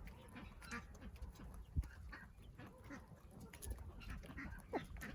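Free-ranging backyard chickens and ducks making scattered short calls, with small clicks among them and one low thump a little under two seconds in.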